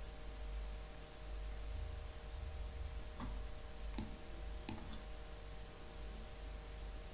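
Three mouse clicks, between about three and five seconds in, over a steady low room hum with faint steady tones.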